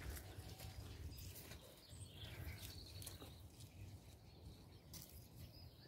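Faint outdoor ambience: a low rumble of wind on the microphone, with a few faint bird chirps.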